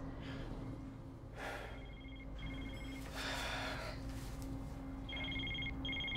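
A flip phone ringing with an electronic two-tone ring in pairs of short rings: two about two seconds in and two more near the end. Between them comes cloth rustling as the phone is pulled from a jacket pocket, over a low pulsing hum.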